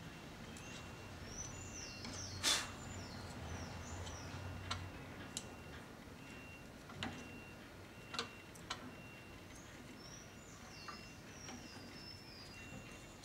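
Birds chirping in the background, with a few sharp clicks and knocks as a white plastic coil bobbin is handled by hand. The loudest click comes about two and a half seconds in, with smaller ones later.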